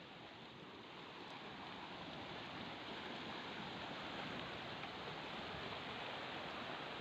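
Rushing mountain stream tumbling over rocks: a steady hiss of white water that grows louder over the first few seconds.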